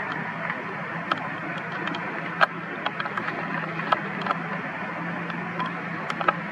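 Newborn monkey suckling at its mother's nipple: soft, irregular wet clicks, about one or two a second, the strongest about two and a half seconds in, over a steady low hum and hiss.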